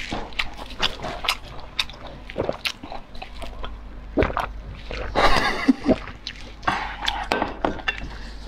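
Close-miked mouth sounds of someone sipping and slurping tea from a glass cup, with small wet clicks of swallowing and chewing. There is a longer, louder slurp about five seconds in.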